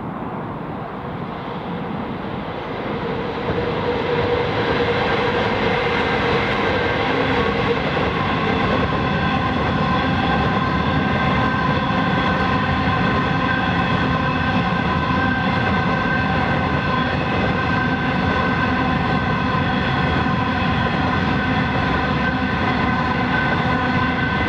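Diesel-hauled coal train passing close: the locomotives come by and get louder about three to four seconds in, then a long run of coal hopper wagons rolls past. Steady wheel-and-rail rumble with a steady whine of several tones over it.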